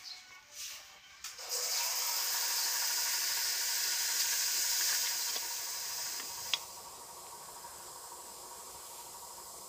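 A steady hiss sets in just over a second in. About six and a half seconds in, after a single sharp click, it drops to a quieter hiss that carries on.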